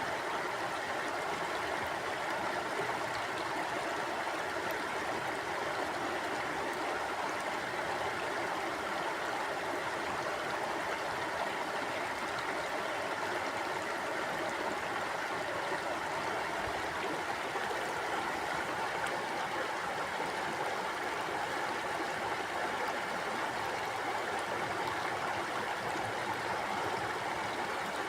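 Mountain stream flowing over rocks, a steady rushing and gurgling of water.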